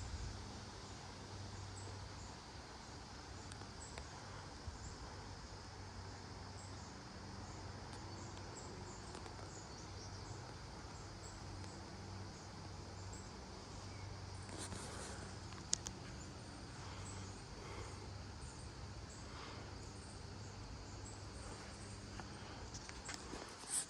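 Steady chorus of insects chirping high, over a low rumble and a low hum that comes and goes. There is one sharp click about sixteen seconds in.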